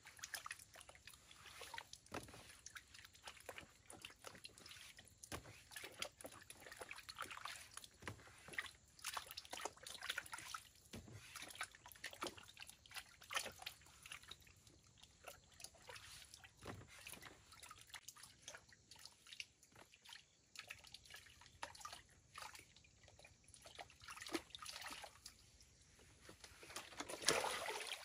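Faint water sloshing and trickling, with irregular small splashes and clicks and a louder splash near the end.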